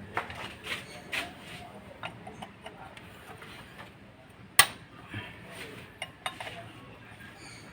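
Wrenches and other hand tools clinking against metal fittings on a diesel engine as they are undone, in scattered small clicks with one sharp clank about four and a half seconds in.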